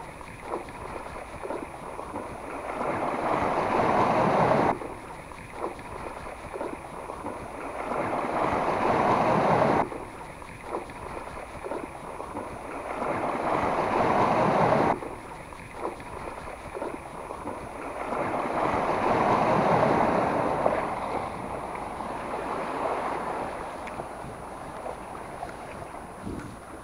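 Sea waves washing against the shore in four swells about five seconds apart, each building over a couple of seconds and then cutting off sharply.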